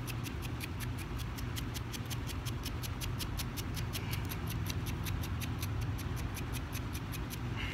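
Quick, even scraping strokes, about six a second, as a corroded spark plug is scrubbed clean by hand with a small tool; the strokes stop near the end.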